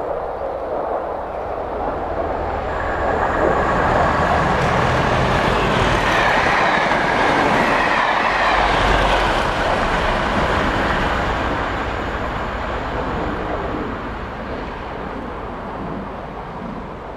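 British Rail Class 37 diesel locomotives, English Electric V12-engined, pass at speed hauling a test train. Engine and wheel noise build, are loudest in the middle, then fade as the train recedes. A whine falls in pitch as it goes by, with a deep rumble just after the peak.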